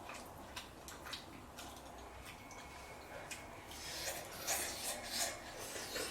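Eating at the table: small clicks and scrapes of chopsticks against dishes, getting busier and louder about four seconds in.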